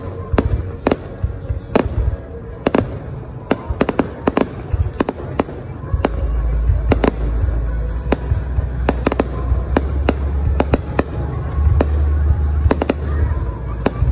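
Aerial fireworks display bursting overhead: a rapid series of sharp bangs, several a second, with a heavy low rumble setting in about six seconds in.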